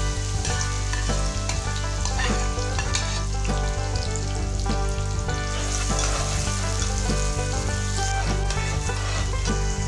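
Chopped onion sizzling as it frys in hot oil in an aluminium wok, with crackles throughout and a steel ladle stirring it near the end. Background music plays underneath.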